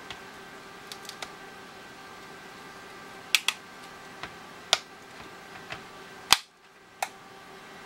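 A string of sharp clicks and snaps as the 3rd-generation iPod's case, steel back and plastic front, is pressed shut, the loudest snap about six seconds in. A faint steady hum sits underneath.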